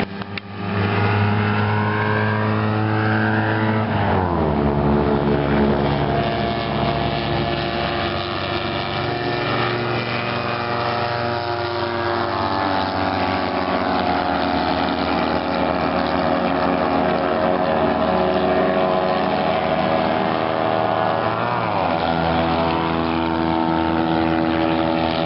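Fiat 126p race cars' small air-cooled two-cylinder engines running flat out around the circuit. The engine note holds steady, falls in pitch about four seconds in as a car goes by, drops again around twelve seconds, and rises near twenty-two seconds as the cars accelerate.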